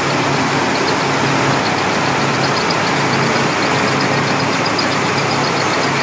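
Tractor-driven rice mill running steadily: the Sonalika DI-50 tractor's diesel engine and the mill's machinery making a dense, unbroken noise while milled rice pours from the chute, with a light fast ticking from about a second in.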